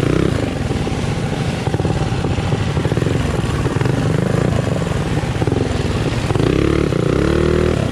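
Mini bike's small engine running close by, its pitch rising as it is revved about six and a half seconds in, then dropping back.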